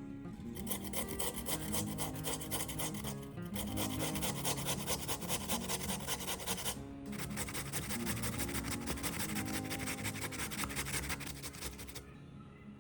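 Rapid rasping strokes of food being grated on a hand grater, in three runs with short breaks about three seconds in and about seven seconds in, over background music.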